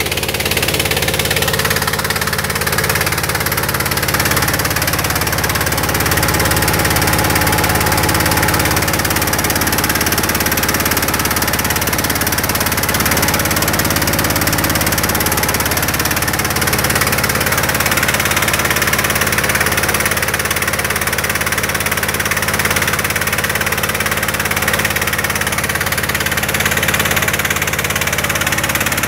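Engine-driven mobile rice huller running steadily, its engine and milling machinery working without let-up as it husks paddy into rice.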